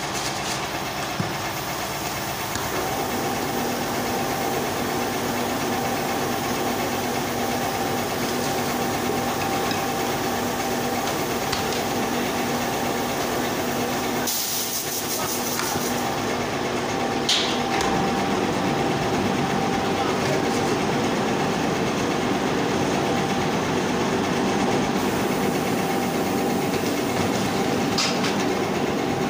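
Steady drone of factory machinery running, with a few held tones in it. Clear plastic packing bags crinkle now and then as bottles are slid into them, most clearly about halfway through.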